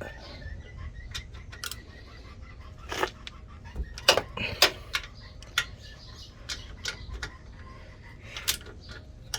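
Scattered metallic clicks and clinks of hand tools and bolts being handled on a truck's suspension, irregular, a cluster of them a few seconds in.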